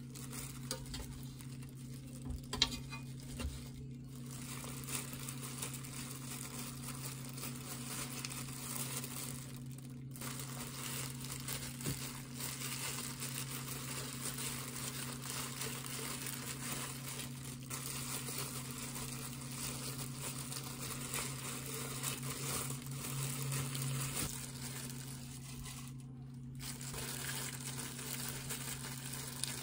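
Thin disposable plastic gloves crinkling and rustling as hands press rice and fillings onto seaweed and roll gimbap, with small scattered taps, over a steady low hum.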